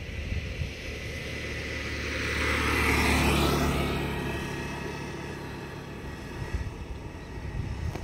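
A motor vehicle passing on the road. Its sound swells to a peak about three seconds in, then fades away.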